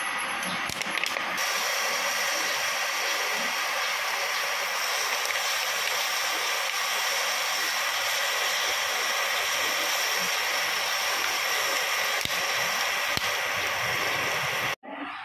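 Metal lathe drilling: a twist drill in the tailstock chuck cutting into a spinning metal workpiece, making a steady high hiss with faint whining tones, water poured over the drill as coolant. The sound cuts off suddenly near the end.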